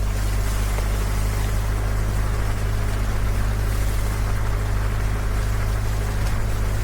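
A vehicle engine running steadily: a constant low drone with an even hiss above it, no change in pitch.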